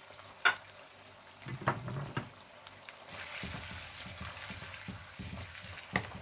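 Wooden spatula stirring canned tuna and sliced onions in a hot oiled wok: a sharp knock about half a second in, then scraping and a few taps against the pan over a sizzle of frying oil.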